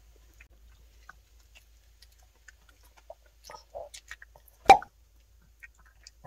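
Miniature Pinscher chewing a small crunchy homemade treat: scattered soft crunches and mouth clicks, with one sharp, much louder click or smack about four and a half seconds in.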